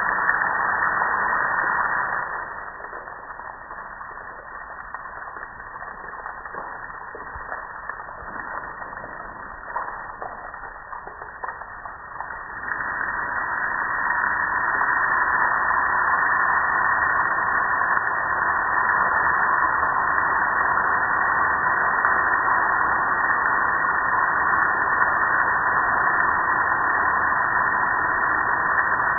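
Pressure washer spray hitting a gas grill's metal hood and panels: a steady hiss of water. It falls to a quieter level about two seconds in and comes back full strength around twelve seconds in.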